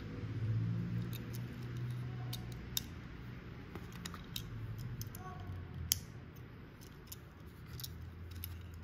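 Light clicks and taps of two die-cast Tomica Premium Lamborghini Diablo SV model cars being handled: their scissor doors flipped open and the cars picked up off the mat. One sharper click comes about six seconds in.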